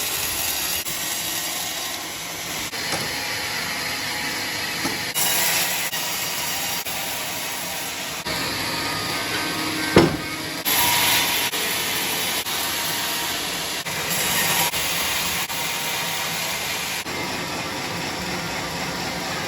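A saw cutting through wood, a steady rasping noise that changes abruptly several times, with one sharp crack about halfway through.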